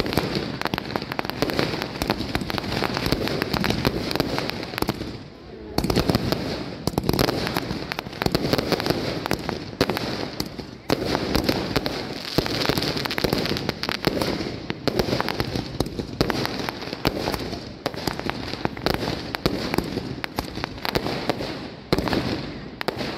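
Fireworks display: aerial fireworks and firecrackers going off in a dense, continuous string of bangs, with a brief lull about five seconds in.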